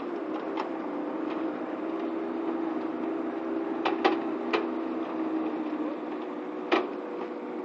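Marolin 500 articulated-arm flail mower, mounted on a truck, running in roadside grass with a steady mechanical hum. Three sharp clicks come close together about four seconds in, and one more near the end.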